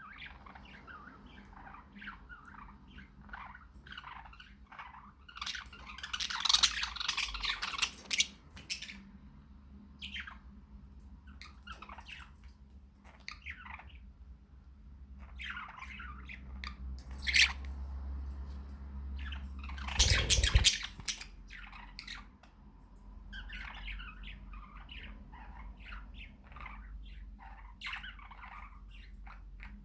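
Budgies chattering and warbling in short chirps and squawks, loudest in a dense stretch about six to eight seconds in. A brief loud noise cuts in about twenty seconds in.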